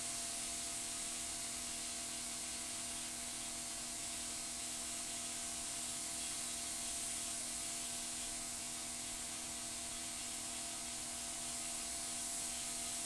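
Paint spray gun spraying primer: a steady hiss that holds unchanged, with a faint steady hum underneath.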